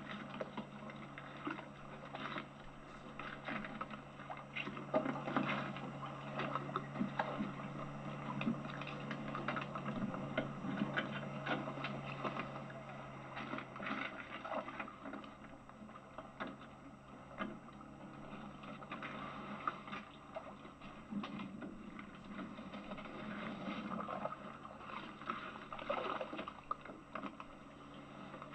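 Small boat out on choppy water: water sloshing and slapping against the hull, with many short splashes and knocks, over a steady low hum.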